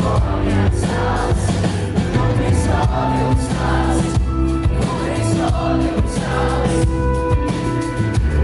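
Live rock band playing loud, with several voices singing together over bass and drums.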